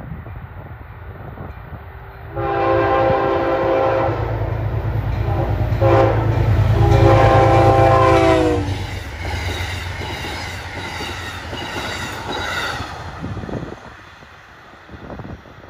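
Amtrak diesel passenger locomotive passing close by with its multi-tone horn sounding. A long blast starts about two seconds in, and after a brief break and a short note a second long blast follows. The horn's chord drops in pitch as the locomotive goes by under a heavy engine rumble. The cars then clatter past on the rails, fading out near the end.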